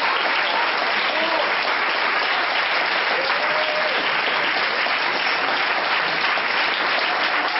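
Audience applauding steadily after a song, with a few cheers rising out of the clapping.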